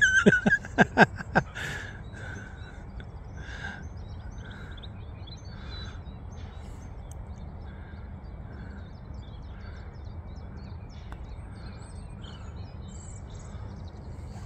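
Birds calling and chirping: short calls repeating every second or so, with small high chirps joining after a few seconds, over a steady low outdoor rumble.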